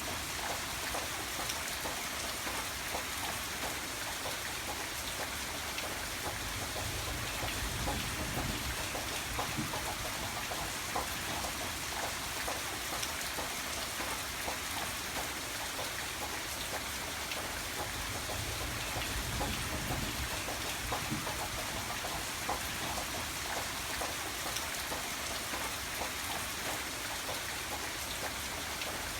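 Steady rain falling, an even hiss with many small drops tapping on a surface.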